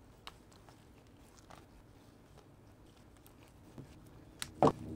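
Side cutters and needle-nose pliers nibbling at a gas sensor's clipped-on plastic filter cap: a few small scattered clicks and snips of plastic, then one much louder sharp snap near the end.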